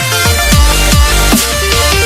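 Electronic dance music with heavy bass: deep bass hits that drop in pitch, about three a second, under a steady synth line.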